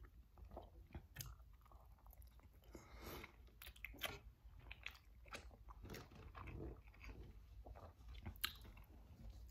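Faint close-up eating sounds: a person chewing a soft, cheesy buffalo chicken slider on a Hawaiian roll, with scattered wet mouth clicks and smacks. Partway through, a finger is sucked clean of sauce.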